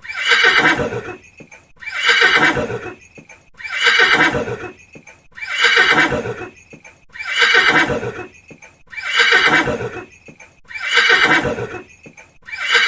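A horse whinnying: the same short whinny repeated about seven times, roughly every two seconds, each call starting high and falling in pitch.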